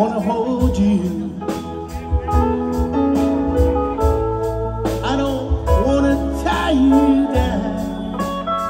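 Live band playing: electric guitars, pedal steel guitar, bass, keyboard and drums, with notes sliding in pitch over a steady bass line.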